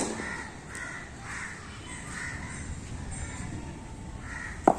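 Crows cawing over and over in a quick run of short calls. A single sharp knock sounds near the end.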